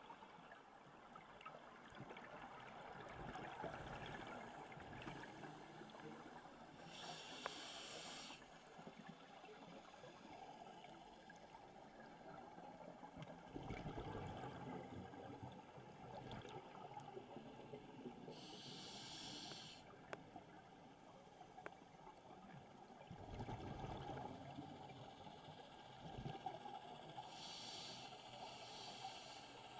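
A scuba diver breathing through a regulator, heard faint and muffled through an underwater camera housing. There are three short hissing inhalations about ten seconds apart, with low swells of bubbling exhaled air between them.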